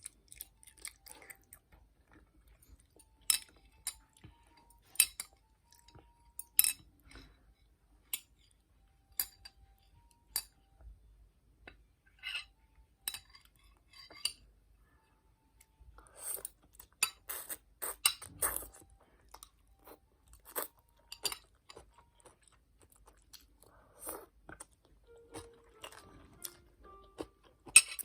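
Close-up eating sounds of a child chewing bibim-myeon noodles with cucumber: scattered crunchy chewing and mouth clicks, with light clicks of cutlery against the dish. They are busiest about two-thirds of the way through.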